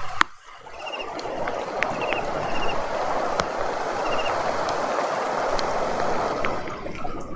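Steady rain with scattered sharp drips.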